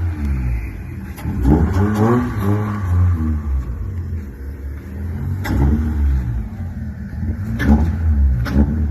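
Car engine revved in quick repeated blips of the throttle, its pitch rising and falling again and again, with several sharp pops between the revs.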